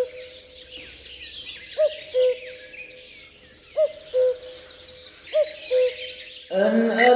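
A bird's two-note hooting call repeats about every two seconds, four times: a short arched note, then a flat lower one. Behind it small birds twitter in quick high chirps. A chanting voice comes in near the end.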